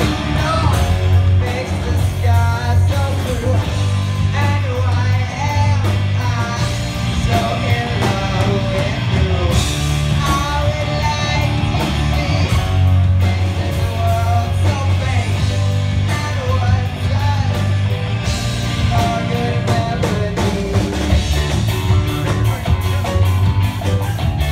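A live band playing a ska song, with drums, bass guitar and guitar over a strong, steady bass line.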